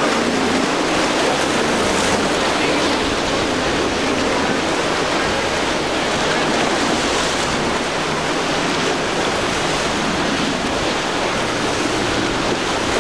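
Rough surf and breaking waves wash steadily as a center-console boat powers through them, with the low drone of its twin 350 hp outboard engines underneath the spray.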